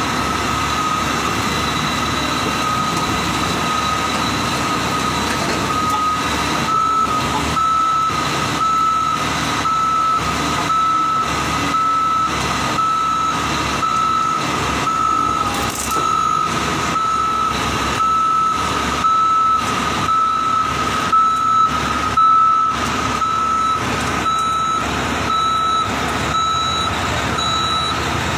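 Heavy-equipment reversing alarm beeping at a steady, even rhythm over a diesel engine running.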